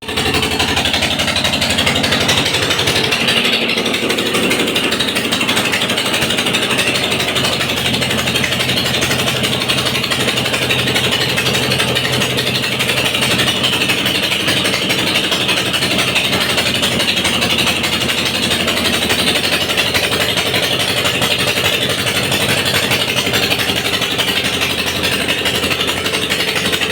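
A small engine running steadily and loudly.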